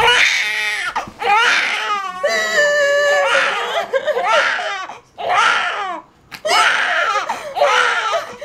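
A newborn baby crying in a run of high wails with short breaks, together with the mother's emotional sobbing and crying out.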